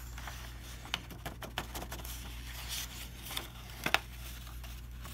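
A sheet of paper being picked up, bent and folded, rustling and crinkling, with a few sharp ticks, the loudest about four seconds in.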